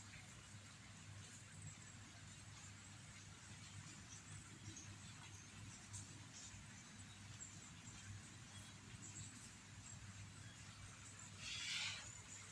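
Near silence with a faint steady low hum, broken near the end by one short high-pitched kitten mew.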